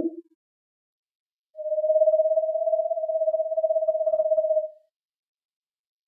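An owl calling: one long, steady call held at a single pitch with a slight rapid waver, lasting about three seconds and starting about a second and a half in. The last note of an owl's hooting series fades out at the very start.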